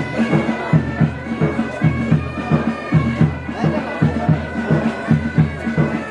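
Military pipe band bagpipes playing a tune. The chanter melody rides over the steady drone, with a quick, regular low beat underneath.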